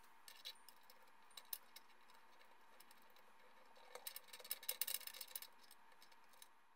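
Faint small metallic clicks and light rattling as steel fence-mounting bolts are threaded by hand into the front edge of a bandsaw table. A denser run of clicks comes about four to five and a half seconds in.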